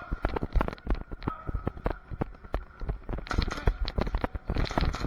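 Irregular clatter of sharp clicks and knocks during indoor airsoft play, thickening into dense flurries about three seconds and four and a half seconds in.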